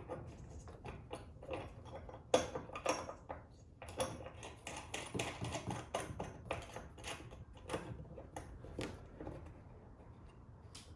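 Irregular clicks, taps and light metallic clinks of small hardware being handled and fitted by hand, the loudest about two and four seconds in, thinning out near the end.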